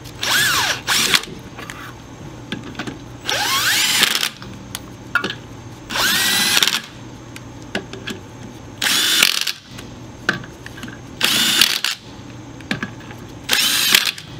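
Battery-powered impact driver spinning lug nuts onto a trailer wheel's studs, in about six short runs of a second or less, its pitch rising as it spins up at the start of each run.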